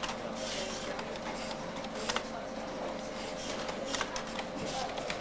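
Computer-room sound: scattered keyboard and mouse clicks over a steady hum.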